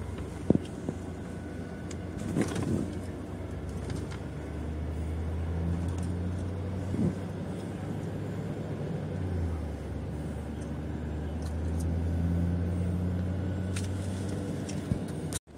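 Car engine and road noise heard from inside the cabin while driving slowly: a steady low hum that shifts in pitch about halfway through, with a few small knocks. The sound cuts out briefly near the end.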